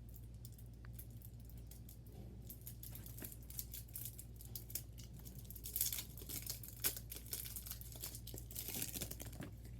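Plastic packaging of a trading-card deck crinkling and tearing as it is opened, in irregular crackles that come thicker and louder about six and nine seconds in, over a steady low hum.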